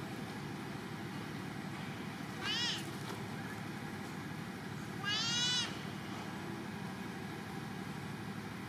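Two high-pitched calls from an infant long-tailed macaque, about two and a half seconds apart, the second longer and louder; each rises and then falls in pitch.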